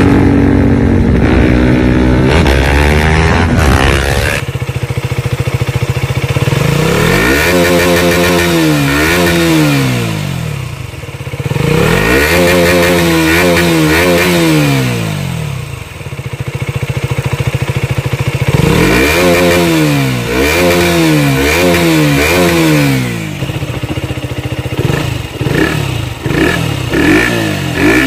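Motorcycle engine sound effect, a steady drone at first and then three bouts of revving that rise and fall in pitch again and again, as the toy remote-control motorcycle drives about.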